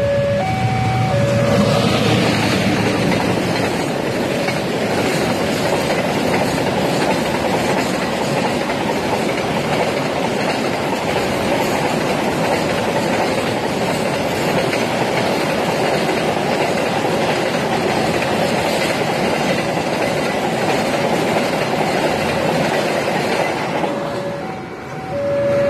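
Diesel-hauled container freight train passing close by, its wheels rumbling and clattering over the rails for about twenty seconds before fading near the end. An electronic two-tone warning alarm rings at the start and again as the train clears.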